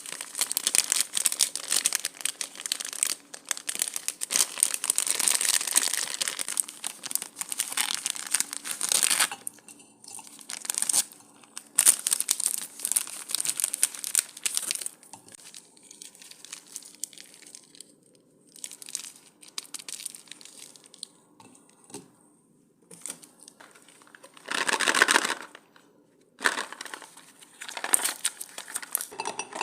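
Plastic sweet wrappers and packaging crinkling and tearing. The crinkling is dense for about the first nine seconds, then comes in short bursts with quiet gaps between them. The loudest burst is about 25 seconds in.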